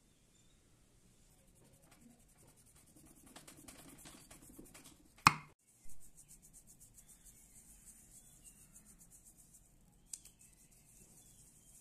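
Knife paring the rind off a ripe yellow cucumber: soft scraping strokes, with one sharp, loud knock about five seconds in and a smaller one near the end.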